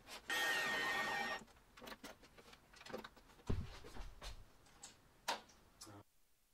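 Cordless drill-driver running for about a second, driving a mirror fixing screw into a wardrobe door, followed by a few faint clicks and taps.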